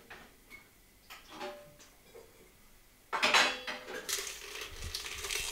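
Kitchen clatter of dishes and utensils while ingredients go into a glass blender jug: a few faint clinks, then a sudden louder clatter about three seconds in.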